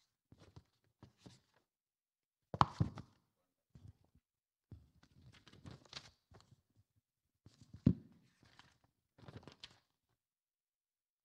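Paper rustling and handling knocks picked up by a handheld microphone as pages are turned at a pulpit, with two louder thumps, one about two and a half seconds in and one near eight seconds.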